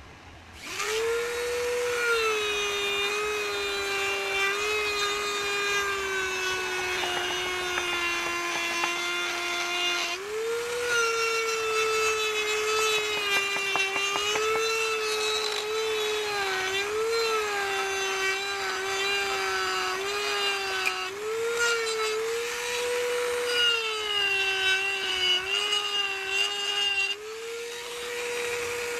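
Handheld electric rotary tool carving wood with a small burr, starting up about half a second in. Its high motor whine sags in pitch as the bit bites into the wood and climbs back when it is eased off, over and over.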